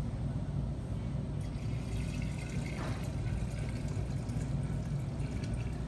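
Liquid glaze pouring in a stream from a plastic pitcher into an unglazed clay vase, filling it, over a steady low room hum.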